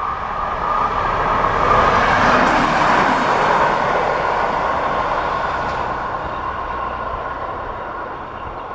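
Level crossing's electronic bell ringing steadily while the barriers are down, under a passing rush of vehicle noise that swells to a peak about three seconds in and then slowly fades.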